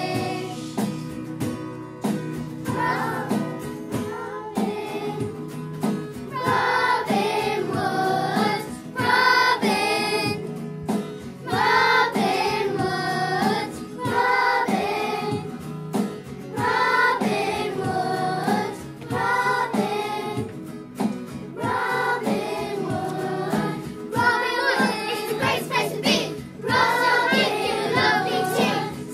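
A class of young children singing a song together as a choir, over instrumental accompaniment with a regular beat.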